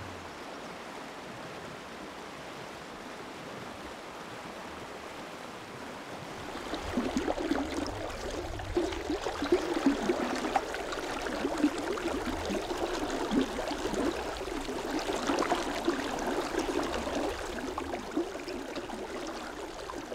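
A shallow mountain river running, a steady rush of water that is soft at first and turns louder and choppier about six and a half seconds in.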